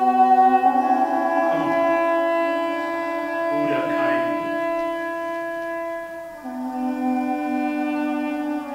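Cello playing slow, sustained notes, the pitch shifting about a second in and again past six seconds.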